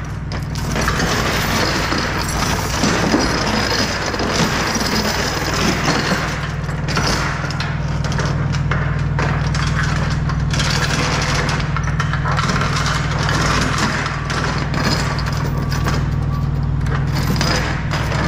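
Steel tie-down chain rattling and clinking as it is fed through the eye of a steel coil and dragged over the flatbed trailer's deck, with a steady low hum underneath.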